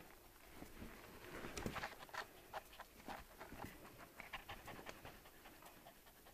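Small black dog panting in quick, faint, irregular breaths.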